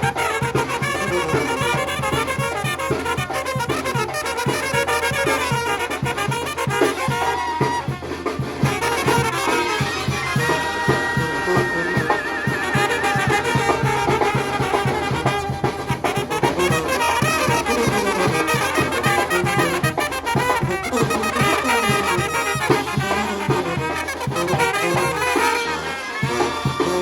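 Mexican banda brass band playing continuously, its trombones sounding together with the trumpets.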